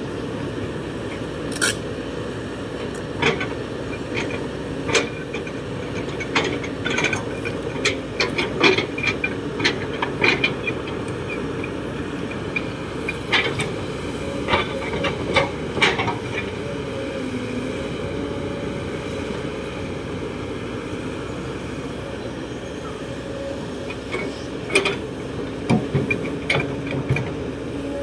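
Kobelco SK200-8 hydraulic excavator running steadily while its bucket digs into stony soil. Repeated sharp clanks and knocks from the bucket and rocks come in three spells: early on for several seconds, briefly around the middle, and again near the end.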